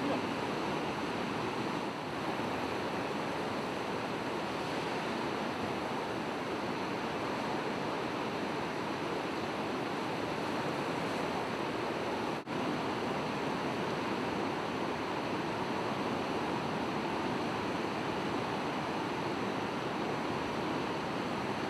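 Breaking surf and fast-running floodwater at a river bar: an even, steady rush, with a momentary dropout about halfway through.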